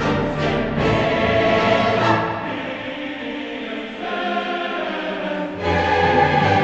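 Background music with choir voices singing sustained chords, quieter for a couple of seconds in the middle.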